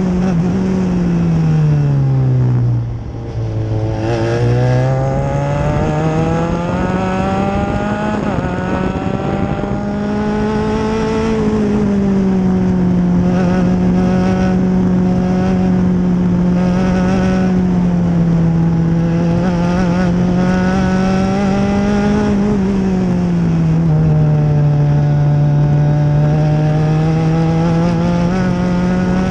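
Open-wheel formula race car's engine, heard onboard at race speed. The revs fall sharply about two to three seconds in, then climb back up and hold fairly steady, with a smaller dip a little over twenty seconds in.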